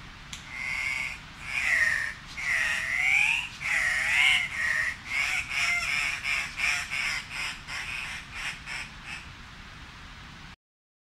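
Andean cock-of-the-rock males calling: a few longer, wavering calls first, then shorter calls coming faster, about two a second. The sound cuts off suddenly near the end.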